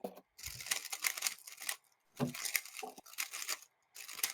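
Rapid plastic clicking of a speedcube being turned, in three short flurries.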